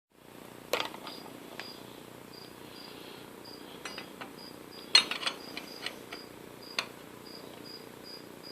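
Sharp metal clinks and light knocks as a change gear is worked off the Atlas lathe's gear train, the loudest about five seconds in. Under them a faint, high chirp repeats steadily about three times a second.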